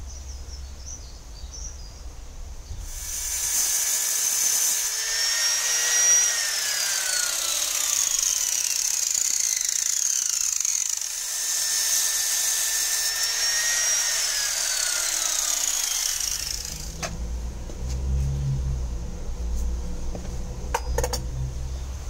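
Corded angle grinder running with a harsh hiss and a high whine. The whine twice holds and then slides down in pitch over a few seconds as the grinder winds down. It stops about three-quarters of the way through, leaving a low rumble and a few clicks near the end.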